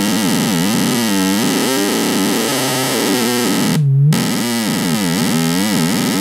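Serge Timbral Oscillator in a chaotic feedback loop, its output fed through a frequency divider back into its pitch control: a pitched tone rich in overtones under a hiss of noise, its pitch swooping down and back up several times as a knob is turned. About four seconds in, the noise cuts out for a moment, leaving a purer low tone, then returns.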